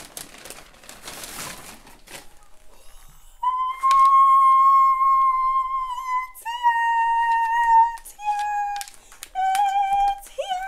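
Crinkling of a brown paper takeout bag as food is pulled out. Then, from about three and a half seconds in, a high sustained tone holds four long notes, each a step lower than the last, with a slight wobble on the final note and a quick dip at the very end.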